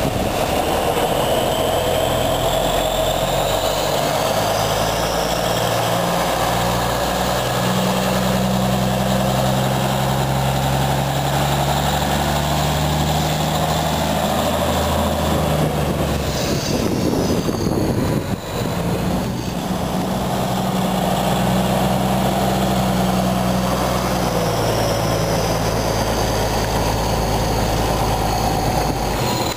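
Diesel engine of a 1989 Spartan/Simon/LTI 100 ft aerial ladder fire truck pulling away and driving past. The engine note steps up and down several times as it pulls off and gathers speed, with a brief dip about halfway through.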